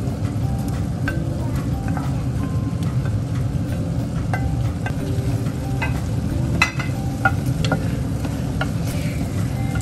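Creamy tomato sauce simmering and sizzling in a pan while shredded chicken is slid in off a ceramic plate and stirred through with a spatula. Scattered clicks and scrapes of the plate and spatula against the pan, the sharpest about two-thirds of the way through.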